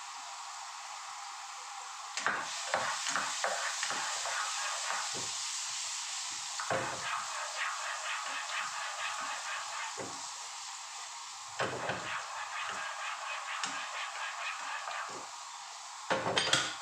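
Oil sizzling in a frying pan with a steady hiss, while a spatula scrapes and taps against the pan in three spells of stirring, with a louder clatter near the end.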